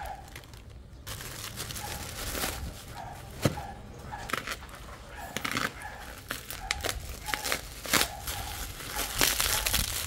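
Product packaging being handled: crinkling and rustling, with irregular sharp clicks and taps.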